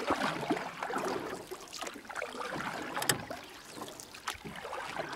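Water splashing and sloshing unevenly, with a sharper splash about three seconds in.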